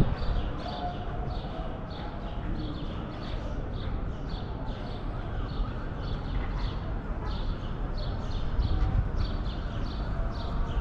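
Outdoor ambience with a quick, regular high ticking, about two ticks a second.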